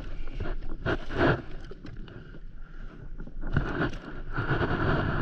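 Scraping and rustling of gear being handled on an inflatable paddleboard, in a few irregular bursts. A steadier rush of wind and water noise builds near the end.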